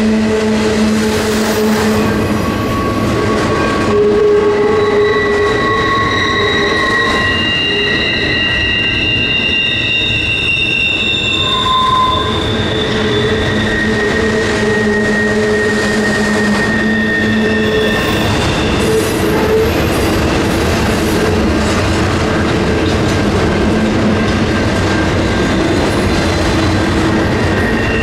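Double-stack intermodal container cars rolling past, their steel wheels squealing in long, shifting high tones over the steady rumble and clatter of wheels on rail as the train takes a curve.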